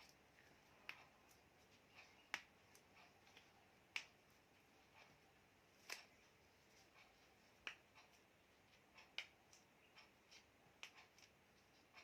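Near silence broken by a dozen or so faint, sharp clicks at irregular intervals, a little louder about two and a half and four seconds in.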